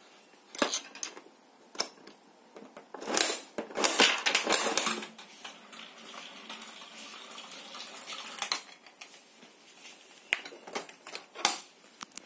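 A spiral gumball vending machine dispensing a bouncy ball. Sharp clicks and a rattling clatter come from the coin mechanism and dispensing wheel, then the ball rolls down the clear plastic spiral ramp, with a few knocks near the end as it drops into the outlet.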